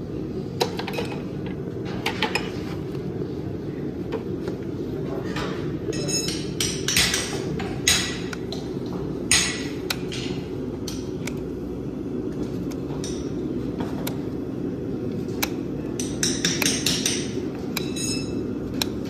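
Hoof nippers cutting through a horse's overgrown hoof wall, making sharp snaps and clicks at irregular intervals with a cluster near the end, over a steady low hum.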